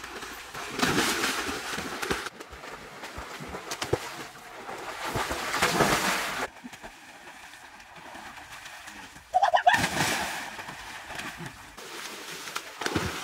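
Water splashing in a swimming pool as children swim, coming in three bursts of a couple of seconds each. A short high call sounds about nine and a half seconds in.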